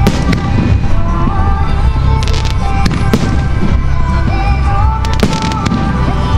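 Fireworks display: aerial shells bursting in a rapid string of bangs and crackles, mixed with music playing along.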